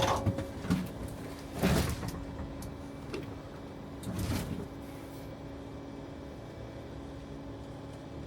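A few sharp knocks, then two longer scraping clunks like a door or panel being slid or shut, over a steady low hum.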